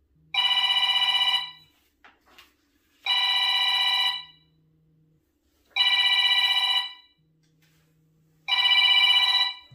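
Mobile phone ringing with a trilling ringtone: four rings, each a little over a second long, evenly spaced with short pauses between them.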